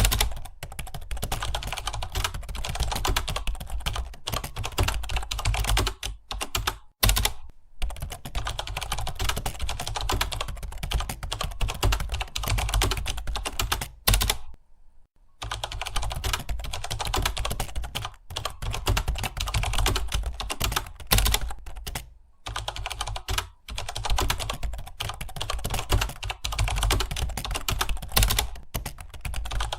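Fast, continuous typing on a computer keyboard, a dense run of keystrokes that breaks off briefly a few times, the longest pause about a second halfway through.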